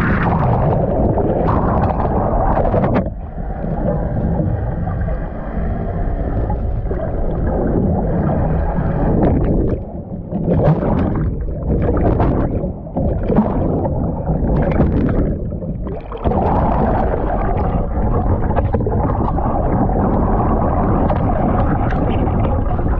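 Muffled rush of water streaming past an underwater camera housing held below a sailboat's hull while it moves under sail. Between about 10 and 16 seconds the rushing breaks into choppy gurgling bursts as the camera is churned among bubbles near the surface.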